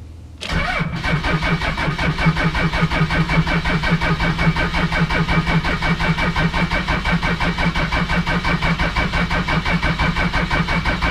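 Starter cranking a 1997 Dodge Ram's 5.9 Cummins inline-six diesel, which does not catch. It is a steady rhythmic pulsing that begins about half a second in. The cranking is slow, which the owner puts down to low batteries.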